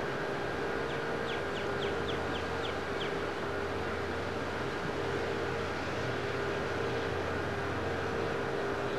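Steady outdoor hum and hiss carrying a few constant tones, with a bird giving a quick run of about eight short falling chirps between one and three seconds in.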